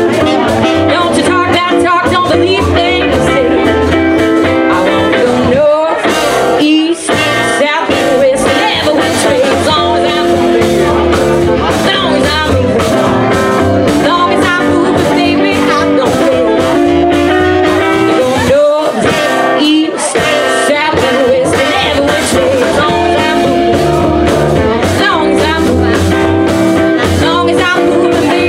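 A live band playing: a woman singing over saxophone, electric guitar, upright bass and drums, with a steady beat. The bass and drums drop out briefly twice.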